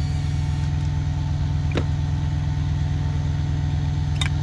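Idling truck engine: a steady low hum, with a light click about two seconds in and another near the end.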